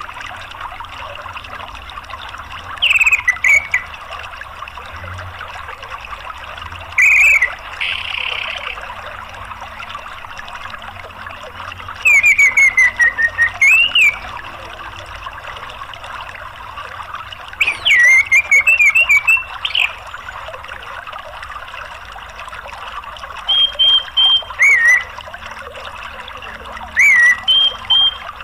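Orange-headed thrush calling in short clusters of quick chirping notes, about six times, over a steady rush of flowing water.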